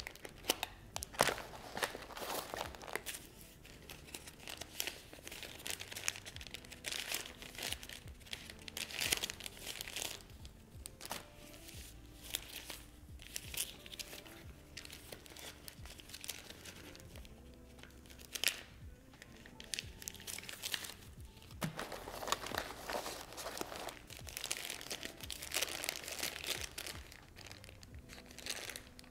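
Plastic packaging crinkling and rustling in repeated bursts as first aid items in plastic wrap and a plastic bag are handled. Soft background music plays underneath.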